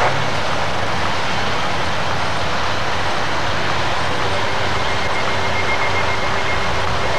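Steady rumble of running vehicle engines and road traffic. A faint, thin high tone comes in about two-thirds of the way through.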